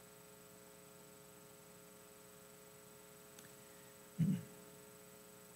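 Steady electrical mains hum on the audio feed, with a faint tick a little past three seconds and, about four seconds in, a short low murmur of a man's voice.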